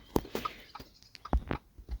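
A run of irregular sharp clicks and knocks, several close together, the loudest about a second and a half in.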